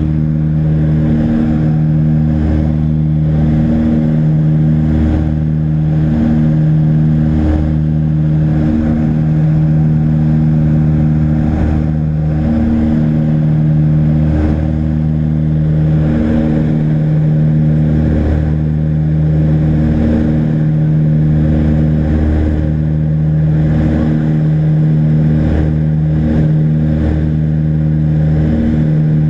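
Twin propeller engines of a Britten-Norman BN2 Islander heard from inside the cabin in cruise: a loud, steady drone with a slow, regular waxing and waning throb.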